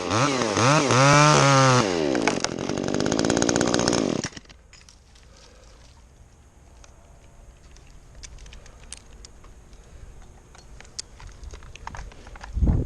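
Chainsaw revving for about four seconds, its engine pitch rising and falling several times, then cutting off. After that come faint clicks and rustling, and a brief low thump near the end.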